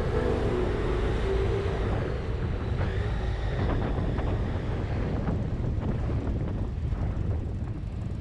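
Wind buffeting the microphone over a steady low rumble of a moving vehicle, with background music fading out in the first second or two.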